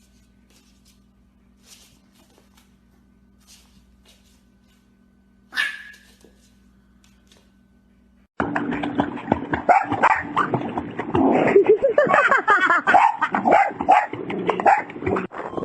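A dog barking and yapping over and over, loud, starting abruptly about eight seconds in. Before that there is only a faint steady hum, a few soft clicks and one short, sharp sound near six seconds.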